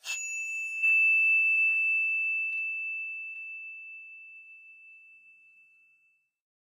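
A bell-like ding sound effect, struck at the start and again more loudly just under a second in, then ringing on one high tone that fades away over about five seconds.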